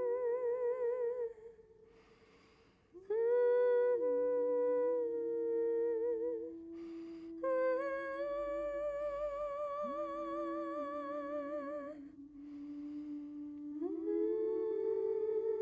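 A woman's voice looped and layered on itself in harmony, holding long hummed notes with vibrato. After a short dip to near silence, new notes enter about three, seven and a half, and fourteen seconds in.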